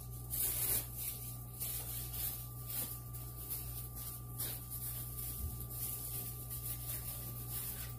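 Gloved hands rubbing oil and seasoning into raw ribeye steaks: soft, hissy rubbing strokes at an irregular pace, over a steady low hum and a faint steady high tone.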